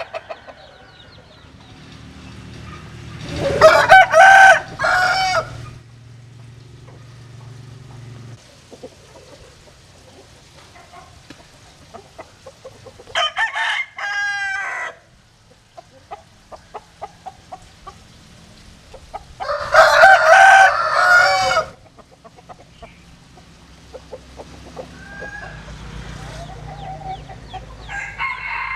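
Roosters crowing: three loud crows, each lasting a second or two, a few seconds in, about halfway through and about two-thirds through, with a weaker crow near the end and short, softer calls between them.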